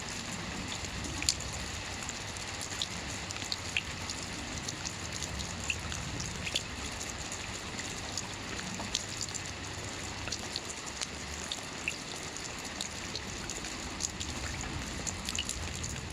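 Steady rain falling, with many sharp individual drops pattering close by over the constant hiss.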